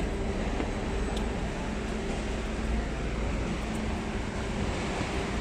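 Steady city background noise: a continuous low hum and rumble from surrounding traffic and machinery, with no distinct events.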